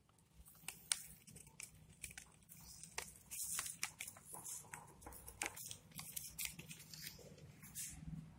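Faint handling sounds of chili powder mixed with brick powder being transferred into a beaker: scattered light clicks and taps with a few brief rustles.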